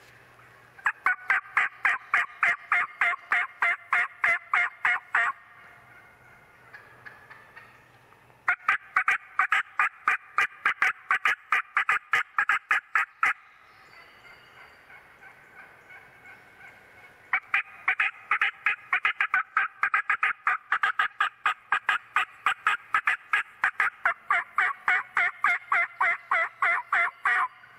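Three long runs of rapid, evenly spaced turkey yelps, about four or five a second and loud, with short pauses between runs; the last run is the longest.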